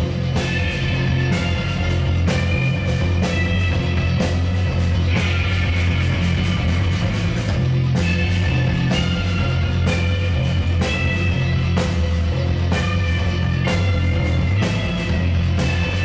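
A rock band playing live: electric guitars, bass guitar and drum kit, with held guitar notes over a steady drum beat.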